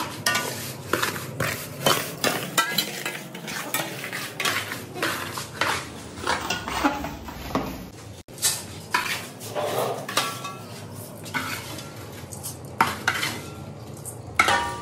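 Metal spoon and ladle scraping and clinking against a large aluminium pot as dry vermicelli is stirred and then scooped out, with the rustle of the strands. There are many quick scrapes in close succession, some with a brief metallic ring.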